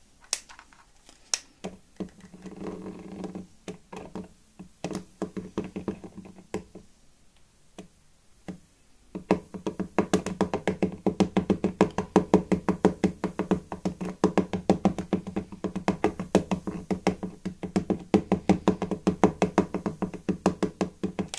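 Handheld static grass applicator buzzing as it is shaken over glued scenery, dropping grass fibres from its sieve canister. There are a few scattered clicks and short pulses at first. From about nine seconds in it settles into a fast, even, louder pulsing buzz.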